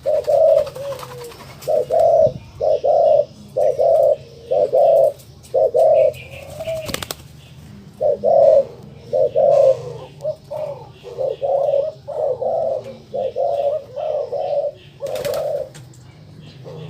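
Colour-mutation ringneck dove (puter) cooing in its courtship display (giring): runs of short, evenly spaced coos, with a short break near the middle. Two brief noises cut in among the coos.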